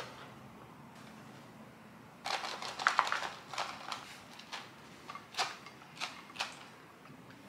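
A brief clatter of light clicks and scraping about two seconds in, then half a dozen single sharp clicks, as food and utensils knock against glass and plastic meal-prep containers while portions are shared out.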